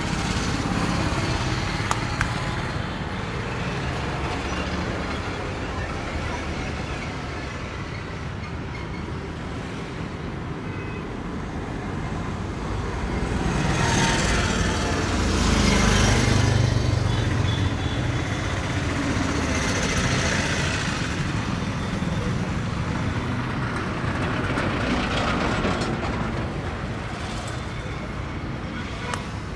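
Street traffic noise: a steady wash of passing vehicles, swelling louder as a vehicle passes about halfway through.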